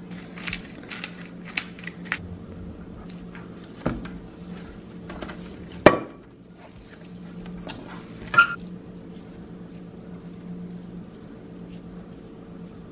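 Hands kneading and pressing plant-based ground meat in a stainless steel bowl: soft squishing with small clicks and knocks against the metal. There is a run of light clicks at first, knocks about four and six seconds in (the one at six the loudest), and a ringing knock of the bowl at about eight and a half seconds. A steady low hum runs underneath.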